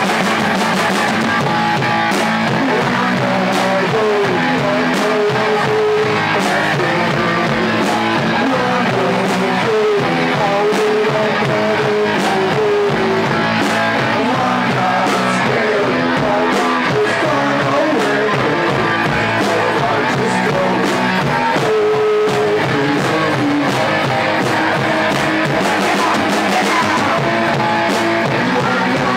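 Loud live punk rock played by a band in a small room: strummed guitar and drums under sung vocals.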